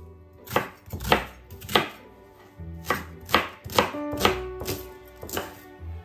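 Chef's knife slicing a shallot on a marble board: about nine or ten sharp knocks of the blade onto the stone at an uneven pace.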